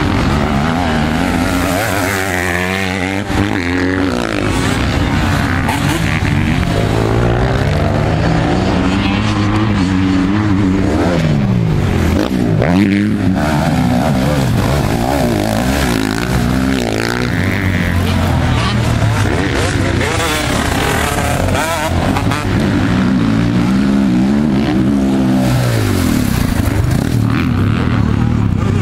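Motocross sidecar outfit's engine revving hard and easing off again and again as it is ridden round a dirt track, the pitch rising and falling with throttle and gear changes.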